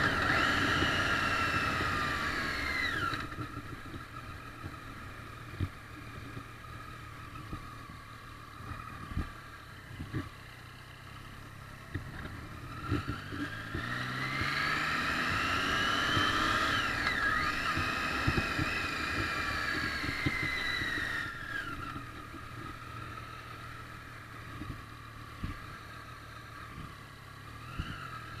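Triumph Street Triple's three-cylinder engine, heard from the bike. Its pitch falls as it slows over the first few seconds, then it runs low and quiet. Around the middle the revs rise as it accelerates and then fall again, with a few short knocks along the way.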